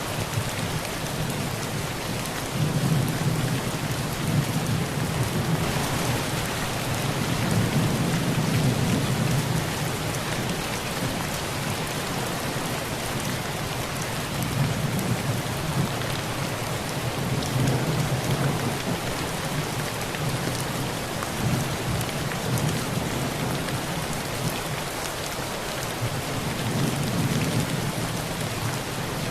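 Heavy rain falling steadily on a tin roof, with low rolls of thunder swelling and fading several times: a long roll in the first third, and shorter ones later.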